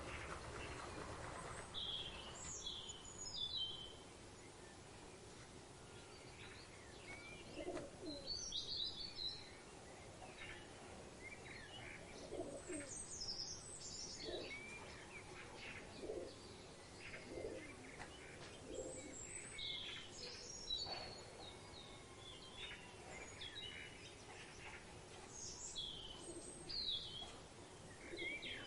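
Birds of paradise and other forest birds calling: scattered short high chirps and whistles, with a run of short low cooing notes every second or two through the middle.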